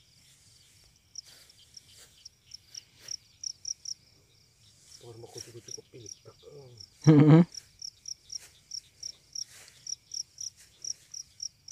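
A field cricket chirping in the grass: a steady series of short, high chirps, about three a second, growing more regular through the second half. A little past halfway a brief human voice or hum, preceded by a faint murmur, is the loudest sound.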